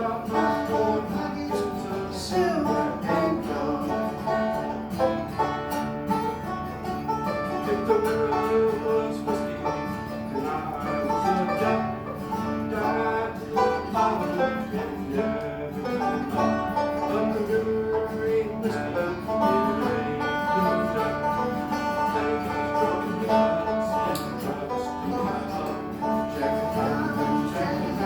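Acoustic bluegrass band playing, with banjo and guitar picking steadily.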